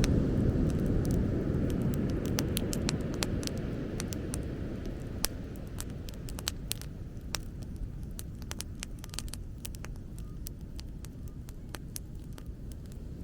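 Bonfire crackling, many sharp pops and snaps, over a low rumble that slowly eases off.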